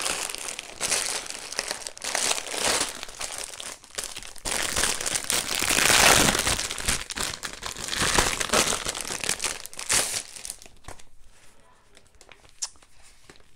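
Sealed plastic bags of Lego pieces crinkling as they are shuffled and lifted by hand, loudest about six seconds in. It dies down to light rustling near the end.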